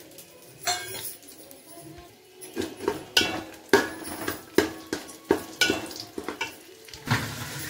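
A steel spoon scraping and knocking against an aluminium cooking pot while stirring bay leaves and spices in oil. The knocks are irregular, start a couple of seconds in, and the pot rings briefly after each one.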